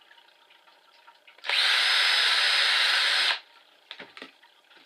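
Cordless drill running steadily for about two seconds as it bores a rivet hole through the plastic sheet of a mask's chin piece, starting and stopping abruptly. A couple of light knocks follow as the drill is set down.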